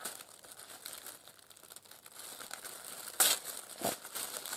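Tissue paper crinkling and rustling as hands peel back its sticker seal and unfold it, with a sharper crackle about three seconds in.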